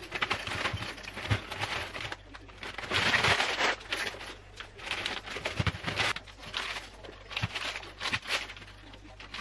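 Plastic food packets crinkling and rustling as they are handled and hung on clip hooks, with a few small clicks.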